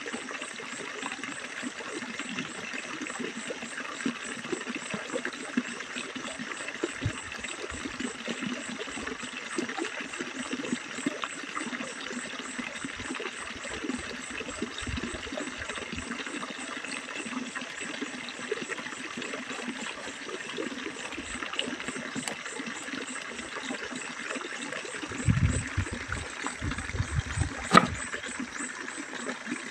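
Steady rushing of stream water, with a few low thumps and one sharp click near the end.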